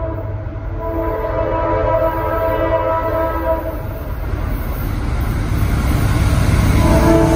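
Norfolk Southern diesel freight locomotive's air horn blowing a long blast of several tones at once, breaking off about three and a half seconds in and sounding again just before the end, over the low rumble of the locomotives.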